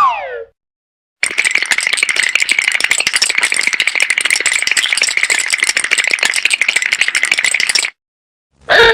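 Cartoon sound effect: a long, fast, even rattle lasting about six and a half seconds. It comes after the tail of a short falling whistle-like glide, and another brief sweeping effect begins near the end.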